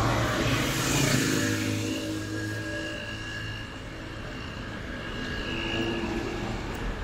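A road vehicle passing close by: a rush of noise that swells and peaks about a second in, then dies away into a steady traffic hum.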